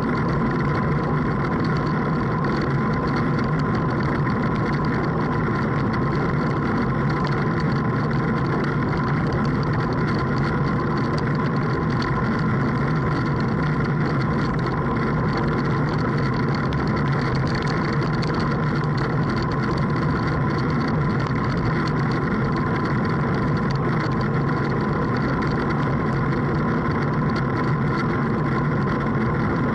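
Motorboat engine running at a steady speed, a constant droning hum with no change in pitch or level.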